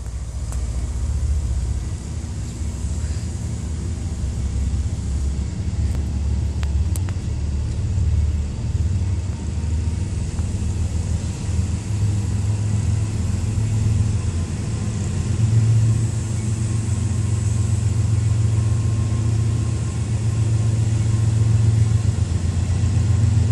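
Low, steady engine rumble that grows stronger about two-thirds of the way through.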